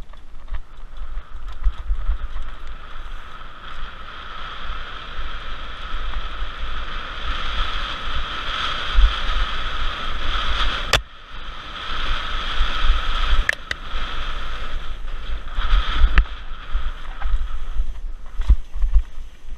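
2014 Pivot Mach 5.7 mountain bike riding a dirt singletrack, heard from a bike-mounted camera: wind buffeting and low rumble from the bumps, with sharp clicks and rattles. A steady high buzz runs through the middle, and the sound drops out briefly about halfway.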